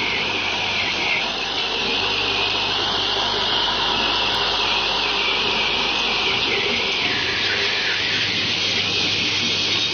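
Vibratory bowl feeders of an automatic screw-driving assembly machine running: a steady, high rattling hiss of parts travelling around the bowls over a constant low electrical hum.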